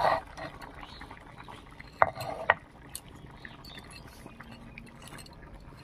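Wet ground spice paste being scraped and gathered by hand on a stone grinding slab (sheel-nora), a soft scraping with small ticks. Two sharp knocks come about two seconds in, half a second apart.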